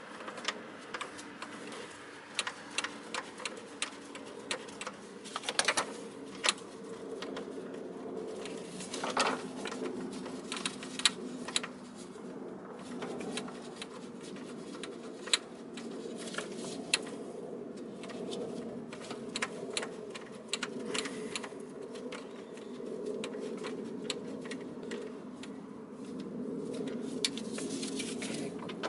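Irregular light clicks and taps of bolts being handled and threaded by hand while a throttle body is fitted back onto an engine, over a steady low hum.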